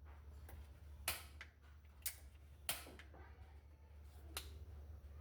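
Four sharp, short clicks or taps at uneven intervals over a faint steady low hum.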